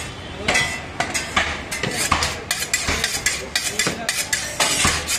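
Butcher's cleaver striking repeatedly at a slab of beef on a wooden stump block: a quick, uneven run of sharp chops and metallic clinks, several a second.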